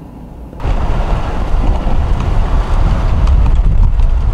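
Wind buffeting the microphone: a heavy, loud rumble that starts suddenly about half a second in, taking over from a quiet car-cabin hum.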